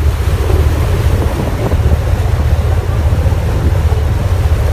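Wind buffeting the microphone aboard a party fishing boat under way, over a loud, steady low rumble of the boat moving through the water.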